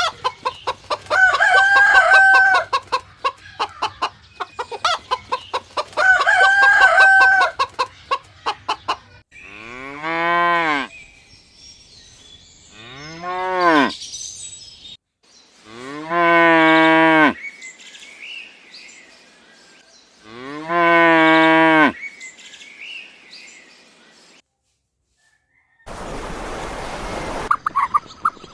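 Two rapid, stuttering fowl calls of about two seconds each, then a cow mooing four times in long, low moos that rise and fall in pitch. Near the end comes a short burst of hiss.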